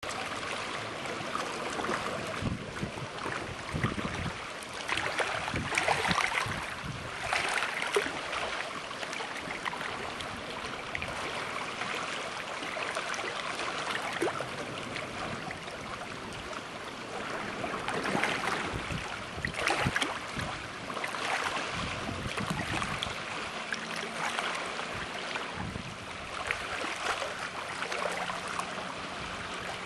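Wind buffeting the microphone over water splashing and rushing past a boat, rising and falling in gusty surges. A faint steady low hum joins in about two-thirds of the way through.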